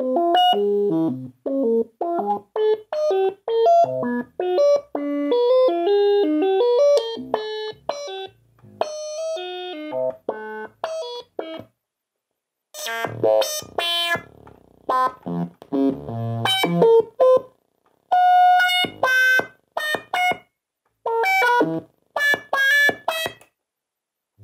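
Homemade modular synthesizer playing a melody of short separate notes, their pitch and gates sent from a load-cell weighing scale through an Arduino. A quick run of notes for about twelve seconds, a brief silence, then brighter notes in groups with short pauses between them.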